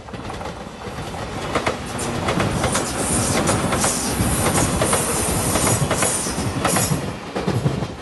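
Five-car JR Shikoku 8000 series electric limited express passing close by at speed: the wheels clack in quick runs over the rail joints, with a high rushing hiss from wheels and rails. The sound builds over the first two seconds, stays loud, and eases near the end.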